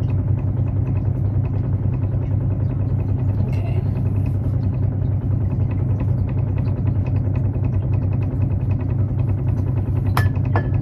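A steady low machine hum runs without change. Near the end come a few sharp clicks with a brief ringing ping.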